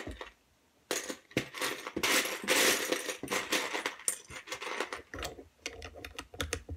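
Loose LEGO bricks clattering as a hand rummages through a plastic bin of pieces, in a dense rattle after a brief lull at the start; near the end it thins to scattered clicks of bricks being handled.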